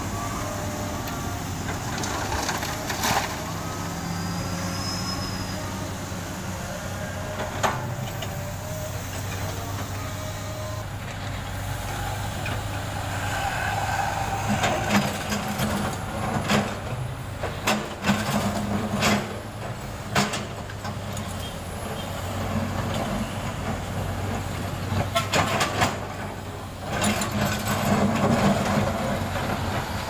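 Diesel engines of a Komatsu PC200 excavator and passing trucks running steadily, with a low hum underneath. Sharp clanks and knocks of the steel bucket and asphalt chunks break in now and then, more often in the second half.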